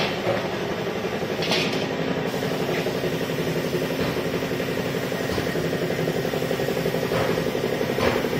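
Air compressor running steadily for spray painting, a fast, evenly pulsing hum, with a couple of short knocks.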